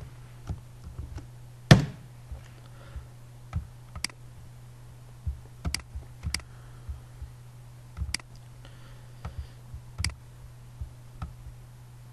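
Scattered clicks of computer keyboard keys and a mouse, one every second or so, with a louder click about two seconds in, over a steady low hum.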